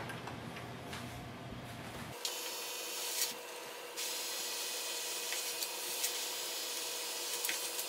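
Canon MAXIFY GX4020 inkjet all-in-one's automatic document feeder running a scan. Its motor gives a steady whir and the paper rubs as the sheets are drawn through, with a few small clicks. The sound starts about two seconds in and grows louder about four seconds in.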